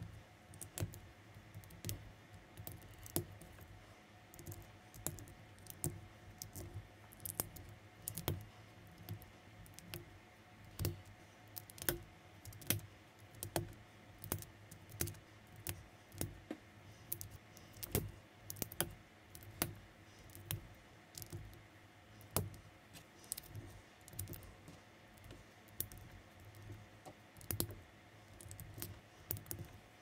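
Plastic building bricks clicking as they are handled and pressed together during assembly: sharp, irregular clicks, one to three a second, over a faint steady hum.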